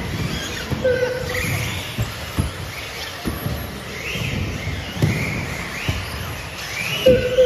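Electric RC cars racing on a carpet track, their motors whining up in pitch again and again as they accelerate, with scattered knocks. A short beep sounds near the end.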